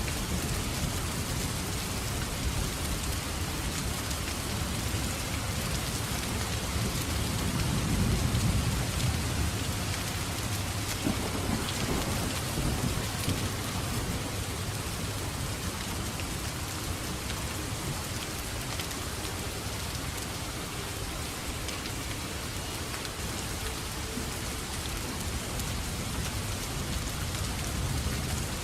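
Steady rain falling, with a low roll of thunder that swells to its loudest about eight seconds in and then fades back under the rain.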